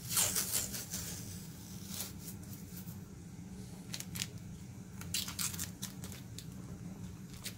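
Masking tape being peeled off a ski in several short rips, with crinkling of the loose tape, over a steady low hum.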